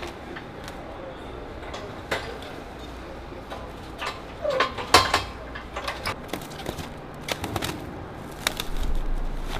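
Cargo-handling noise: scattered knocks and clatters from pallets, a manual pallet jack and plastic wrap, the loudest about halfway through. Indistinct voices come through, and a low steady machinery hum sets in past the middle.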